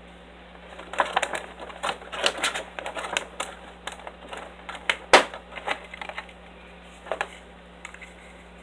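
Clear plastic blister packaging clicking and crackling as it is handled. A quick, irregular run of sharp clicks starts about a second in, with the loudest snap a little past the middle, and a few more clicks come near the end.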